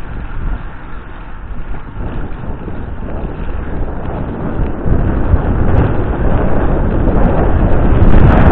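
Wind rushing over the microphone of an action camera on a moving road bike, an even rumbling noise that grows louder about five seconds in as speed picks up.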